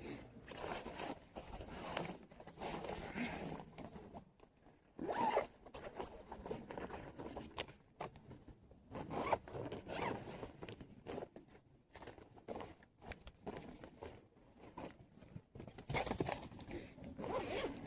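A zipper being pulled in a series of short, irregular strokes, mixed with rustling of fabric, typical of a tent door or gear bag being worked open and shut.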